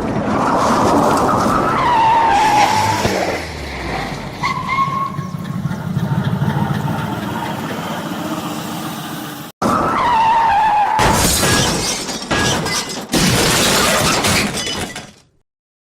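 Dubbed-on car crash sound effects: engine noise with a falling tyre squeal, the same squeal repeating after a sudden cut, then two loud crashes with shattering near the end before the sound stops abruptly.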